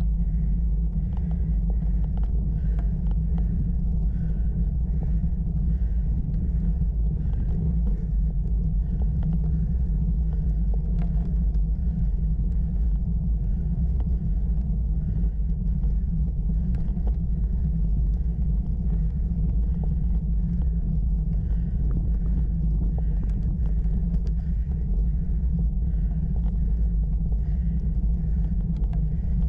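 Steady low rumble of wind buffeting a bike-mounted camera's microphone, mixed with tyre noise on coarse tarmac, while cycling uphill. Fainter higher sounds recur about once a second beneath it.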